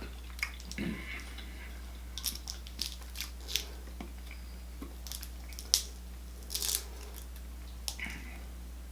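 Seafood boil shells being cracked, torn and picked apart by hand, with irregular sharp cracks and crunches. The loudest comes a little before six seconds in.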